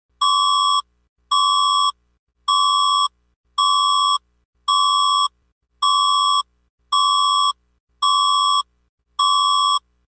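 Emergency-broadcast alert tone: a loud electronic beep repeated nine times at about one a second, each beep a steady, slightly piercing tone about half a second long with short silences between, signalling an incoming emergency broadcast.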